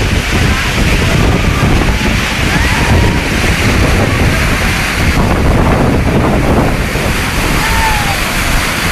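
Water rushing out of a dam's open spillway gates in a loud, steady wall of noise, with wind and spray buffeting the microphone.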